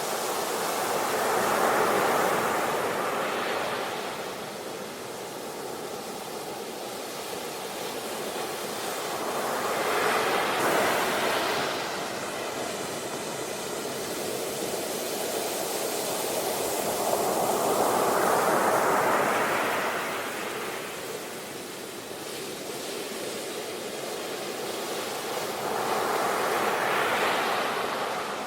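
Sea waves breaking and washing up the shore, the surf rising and falling away four times, about eight seconds apart.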